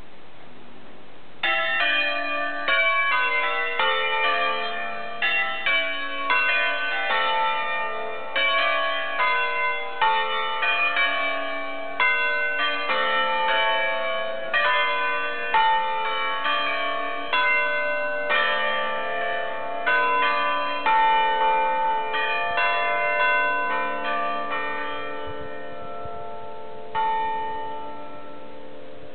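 Five Ambrosian-system church bells cast by Roberto Mazzola in 1952, tuned A, B, C sharp, D and E, electrically swung under hand control and rung a concerto: strokes in quick melodic sequences, their ringing overlapping. The ringing starts about a second and a half in and ends with a last stroke near the end that rings away.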